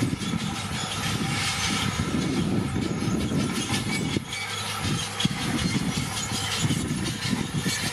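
Crawler bulldozer (Komatsu D41PX) working, its diesel engine running steadily under load while the steel tracks clank and grind, with a brief lull about four seconds in.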